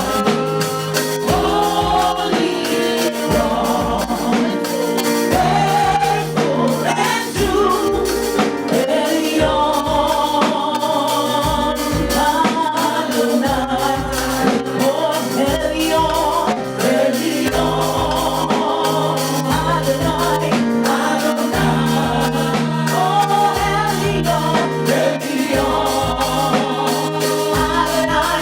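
Gospel music: a choir singing over a band with a bass line and a steady beat.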